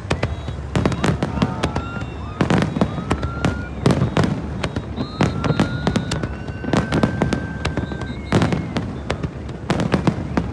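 Aerial fireworks bursting in rapid succession: sharp bangs and crackles, with several rising whistles. One long whistle rises about five seconds in and holds for about three seconds.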